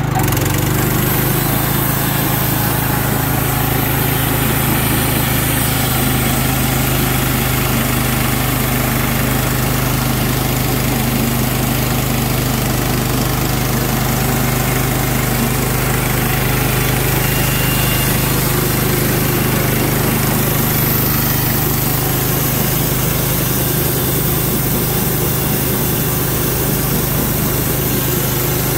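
Clarke Model 50 bandsaw mill's engine running steadily under load as its band blade cuts through a white pine log.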